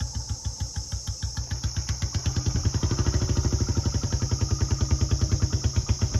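Royal Enfield Bullet 350's single-cylinder engine thumping steadily through an aftermarket bottle silencer, its even beat growing louder and slightly quicker from about two seconds in as the bike is ridden.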